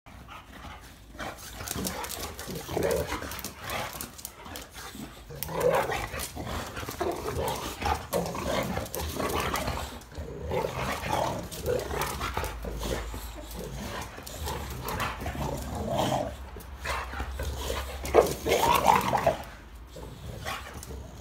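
Boxer dogs growling and vocalizing in repeated short bouts, loudest near the end.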